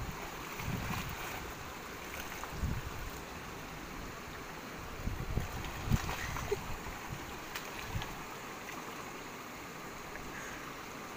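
Shallow stream running over rocks, with several short splashes as puppies are dipped and washed in the water; the largest splash comes about six seconds in.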